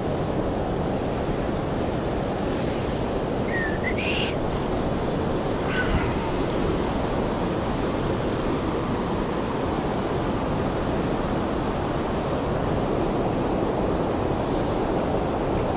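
Steady rush of a shallow river flowing over stones, with white water spilling over a low weir. A few faint high chirps sound between about three and six seconds in.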